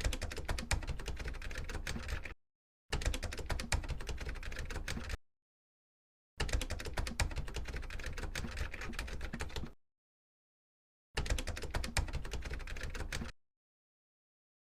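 Typhoon wind and rain: a dense rush of rapid, irregular clicks with a low rumble of wind buffeting the microphone. It comes in four stretches of two to three seconds each, every one cut off into dead silence.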